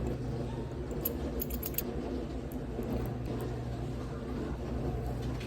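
Light metallic clicks and jingles of keys and small lock parts being handled while a Kwikset lock is rekeyed, clustered about a second in, over a steady low hum.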